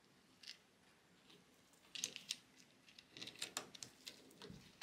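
Faint handling noises from gloved hands working on a 3D printer frame: light rustling and a scatter of small sharp clicks, busiest in the second half, with one sharper click near the end.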